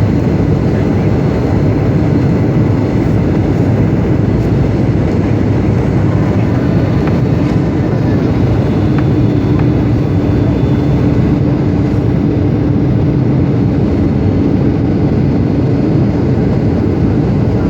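Boeing 757-200 airliner in flight: a steady, loud rush of engine and airflow noise, with a steady hum that grows stronger about halfway through.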